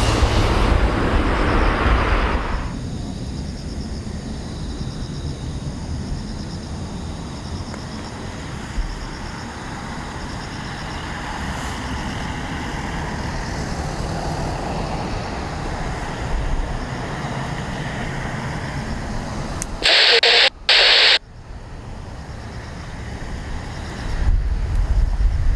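Jet noise from an Airbus A330-941's Rolls-Royce Trent 7000 engines: loud at first, dropping away after about two and a half seconds to a steady rumble. About 20 seconds in come two short, loud bursts of hiss, and the rumble swells again near the end.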